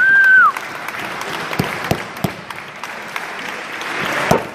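One loud, high whistle lasting about half a second, then an audience applauding, with a few sharper claps standing out.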